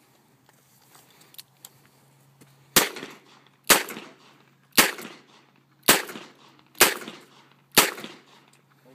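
A revolver fired six times in quick succession, about one shot a second, each a sharp crack with a short echo after it. A couple of faint clicks come before the first shot.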